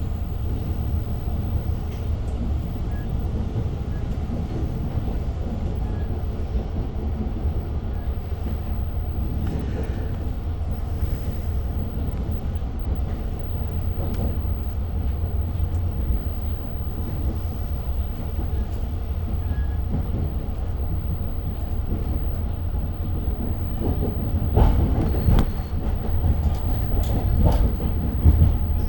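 Long Island Rail Road train running, heard from inside a passenger coach: a steady low rumble with scattered clicks of the wheels over the track. Near the end comes a louder stretch of clattering.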